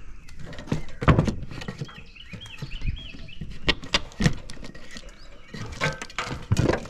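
Scattered sharp knocks from work on an old mobile home gutter as it and its staples are pulled from the roof edge. A bird sings a quick run of up-and-down chirps about two to three seconds in.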